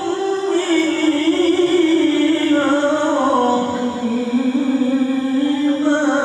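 A male qari reciting the Qur'an in melodic tilawah style, drawing out one long ornamented note. The note sinks slowly in pitch through the middle, then climbs again and breaks off near the end.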